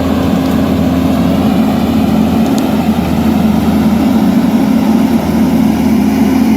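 A heavy machine's engine running steadily, holding a constant low pitch throughout.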